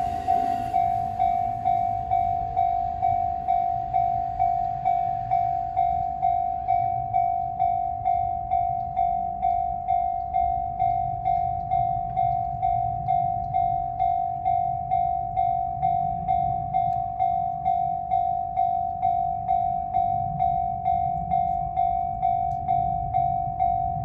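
Japanese level-crossing electronic warning bell ringing, one high tone struck about twice a second over a low rumble. The noise of a train clearing the crossing dies away in the first second. The bell keeps ringing because the crossing is still closed for another train, shown by the lit direction arrow.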